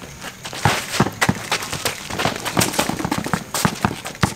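Basketball being dribbled on a concrete court: a quick, irregular string of sharp bounces, mixed with the slap and scuff of sneakers on the concrete.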